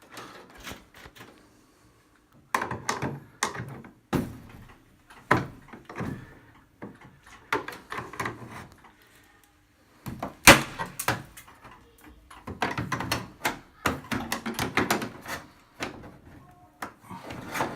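Irregular knocks, clunks and rattles of a Bosch washing machine's parts being worked loose and pulled off by hand, to get past a door lock that will not release.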